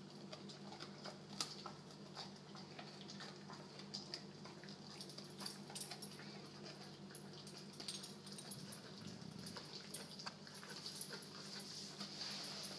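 American bulldog chewing a twirly bully stick: irregular small clicks and crunches of teeth working the chew, over a steady low hum.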